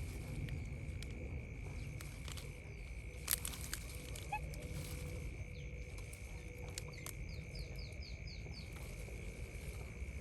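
Outdoor ambience: a steady low rumble under a thin, steady high-pitched drone, a few sharp clicks, and a quick run of about six short, high, falling chirps a little after seven seconds in.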